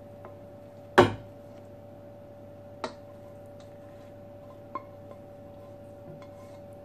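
A serving utensil knocks and scrapes against a stainless steel saucepan while food is served onto plates: one loud ringing clank about a second in, then lighter clinks near three and five seconds. A faint steady appliance hum runs underneath.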